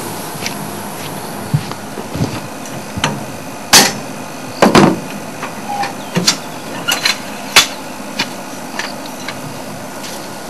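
Irregular metal clanks and knocks of tyre-changing tools being handled on a vehicle, a dozen or so separate strikes with the loudest a little under 4 and 5 seconds in, over a steady hiss.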